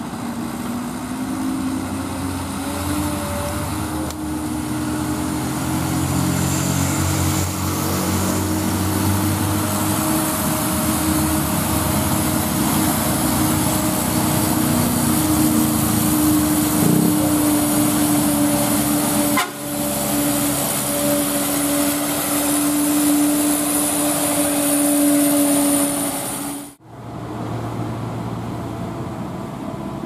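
Mitsubishi Canter dump truck's diesel engine pulling a load of sand up a steep grade: a loud, steady drone whose pitch rises slightly over the first several seconds. Near the end the sound cuts off abruptly and another truck's engine follows, lower and quieter.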